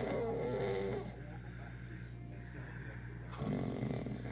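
A sleeping person snoring in slow, regular breaths. One snore fades about a second in and the next begins near the end, each with a buzzing tone in it.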